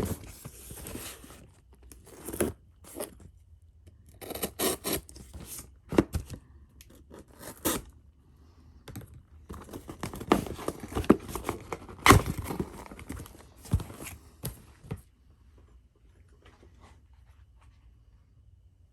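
A cardboard shipping package being opened by hand: irregular tearing and scraping of tape and cardboard, with sharp rips and rustles, dying down to quiet handling about three-quarters of the way through.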